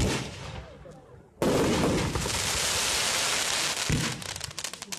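A firework bursts with a sharp bang and its echo dies away. About a second and a half in, a dense barrage of rapid crackling bursts starts and keeps going until just before the end, with a heavier thump near the end.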